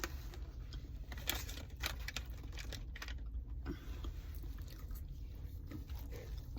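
A person chewing food, with scattered small wet clicks and crunches.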